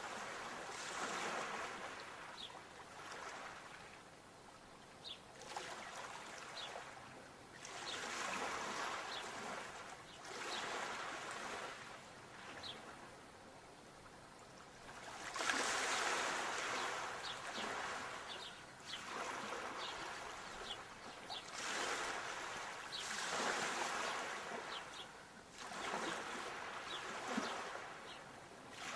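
Sea waves washing in and drawing back, surging and easing every two to three seconds, with the strongest surge about halfway through. Faint small high clicks are scattered through the wash.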